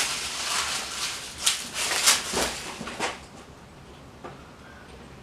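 Irregular scuffing and clattering as the 1999 Yamaha YZ125 two-stroke dirt bike is kicked over, with no engine note: it does not fire, a sign of a fouled spark plug. The clatter is loudest in the first three seconds and then dies down.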